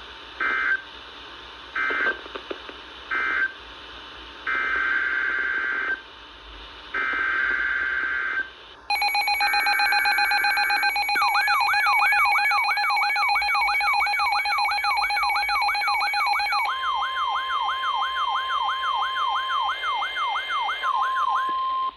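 Weather radio alert sequence: three short bursts of SAME data tones, then three longer data bursts, then a loud electronic alarm with a fast repeating warble and steady tones. The alarm is the signal of a new warning coming in.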